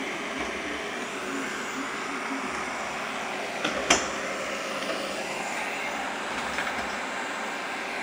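Shark robot vacuum running steadily, a constant motor-and-suction noise, with one sharp knock about four seconds in.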